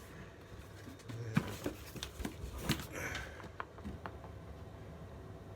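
Rustling and a few light clicks and knocks as packaging and parts are handled, busiest in the first few seconds and then quieter.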